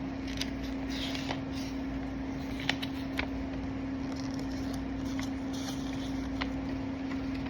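Light rustling and a few small clicks from hands handling small blind-bag packaging and its extras, over a steady low hum.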